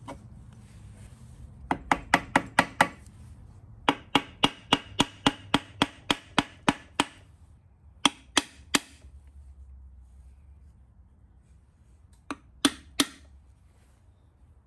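Steel hammer striking a John Deere diesel engine's rear main bearing housing to seat it flush on the block: sharp ringing metal taps in bursts. A quick group of about six, then a run of about a dozen at roughly four a second, then two groups of three.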